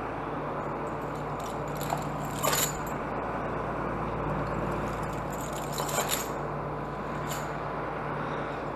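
Diesel tractor engine idling steadily, with a few light metallic clinks and rattles about two and a half, six and seven seconds in.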